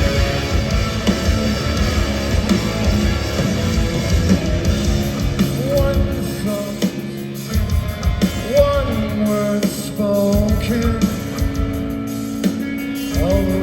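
Live heavy metal band playing loud: distorted electric guitars, bass and pounding drums, with a vocalist singing over them.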